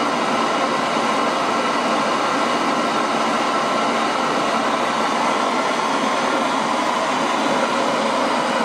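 Small homemade turbocharger jet engine running steadily, a constant rushing noise with a faint whine that holds the same pitch and level throughout.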